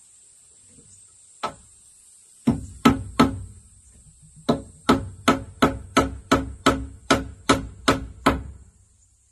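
Claw hammer driving a nail into a wooden plank: a single blow, then three quick blows, then after a short pause an even run of about a dozen blows, roughly three a second.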